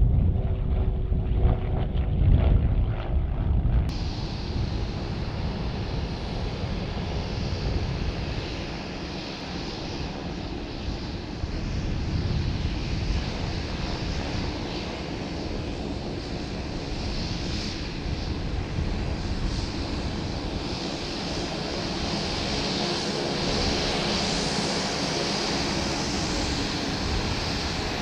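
Steady drone of a distant propeller aircraft engine, swelling a little about halfway through and again near the end. Wind buffets the microphone for the first few seconds.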